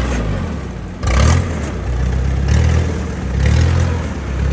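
Rice combine harvester's engine running close by, its pitch rising and falling as the load changes, with short bursts of rustling and scraping among the rice stalks.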